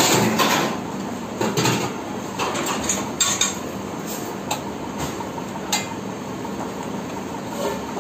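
Stainless steel lids of steam-table food pans clanking as they are handled. There are several sharp metal clinks in the first six seconds, over a steady background noise.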